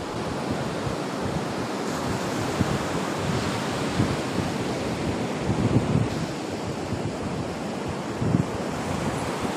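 Surf breaking and washing up on a sandy beach, a steady rush with uneven swells, with wind gusting on the microphone.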